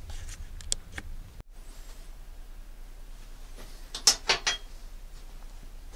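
Light metallic clicks and clinks of hand tools and engine parts being handled, with a quick cluster of sharp clinks about four seconds in.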